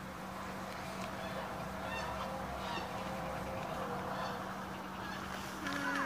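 Scattered bird calls, like waterfowl honking, over a steady low hum, with a louder call near the end.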